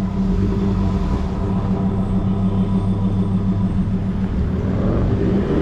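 Four-wheel-drive engine running steadily on the move, a low even drone.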